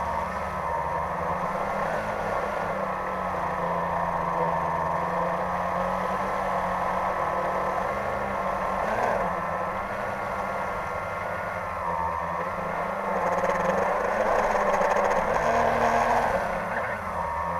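A quadcopter drone's electric motors and propellers whining, the pitch rising and falling as the throttle changes, louder for a few seconds near the end.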